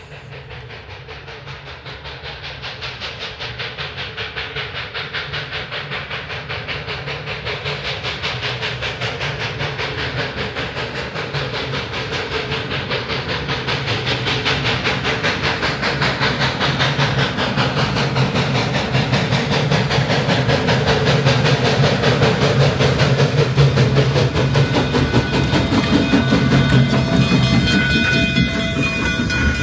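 1923 Alco-built K-28 narrow-gauge steam locomotive working hard up the grade with a rapid, even beat of exhaust chuffs. It grows steadily louder as it draws near.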